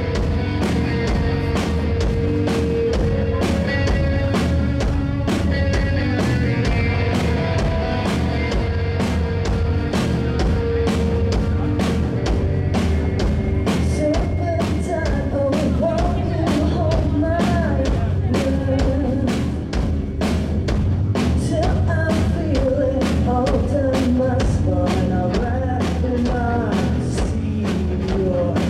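Rock band playing live: electric guitar, bass guitar and a drum kit keeping a steady beat.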